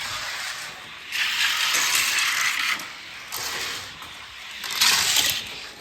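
Die-cast toy cars rolling down a plastic race track, clattering and rattling in uneven bursts. The loudest run of rattling lasts from about a second in to nearly three seconds, with shorter bursts after.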